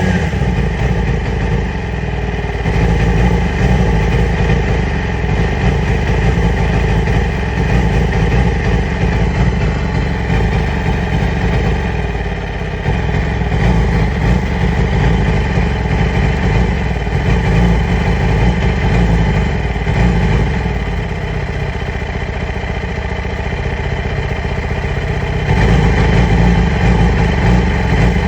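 2008 Yamaha R6 inline-four engine idling roughly, a symptom that the owner puts down to worn ignition coils and spark plugs. It gets somewhat louder near the end.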